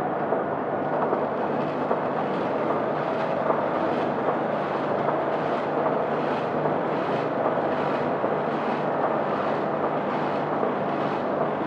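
Packing machine's vibratory feeder running: popcorn kernels rattle across the stainless steel pan and down the lane chutes into the tray elevator, over a steady hum with a faint tick about twice a second.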